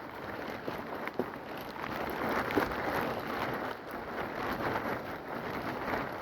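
Steady rain falling, with a few sharp taps standing out about a second in and again at about two and a half seconds.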